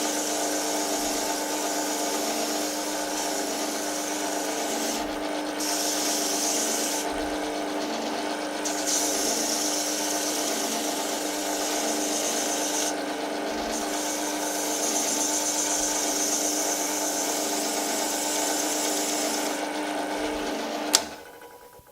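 Pillar drill spinning a hook-and-loop drum sander with a steady, multi-tone motor hum while wood is pressed against the abrasive drum in several passes, each giving a hissing rub with short breaks between. Near the end the drill is switched off with a click and runs down.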